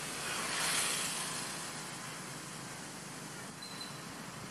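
Steady outdoor hiss, swelling into a brief rustle about a second in.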